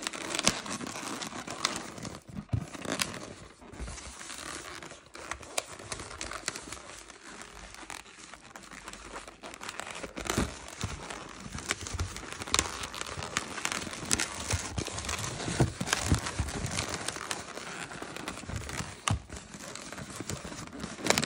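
Latex modelling balloon being twisted and squeezed by hand: a continuous run of rubber rubbing and squeaking, with many short sharp squeaks and creaks throughout.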